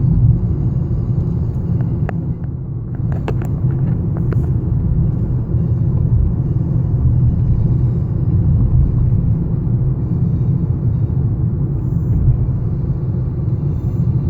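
Steady low rumble of a 2015 Fiat 500e rolling along, mostly road and tyre noise with no engine note, since the car is all-electric. A few sharp clicks come about two to four seconds in.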